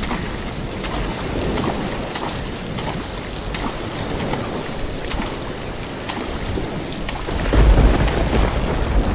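Thunderstorm: steady rain with scattered drop ticks, and a heavy roll of thunder swelling about seven and a half seconds in.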